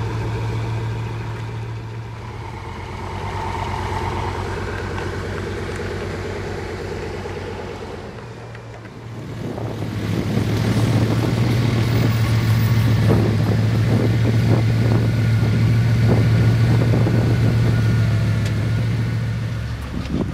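Bugatti Veyron W16 quad-turbo engine idling steadily at the exhaust. About nine seconds in the sound dips and gives way to a second Veyron idling, louder and rougher.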